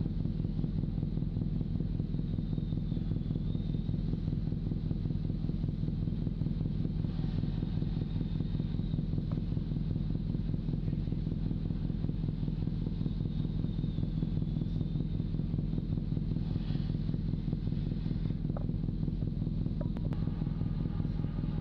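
Steady low drone of heavy machinery running close by, a constant hum that does not change in level, with a faint high whine above it.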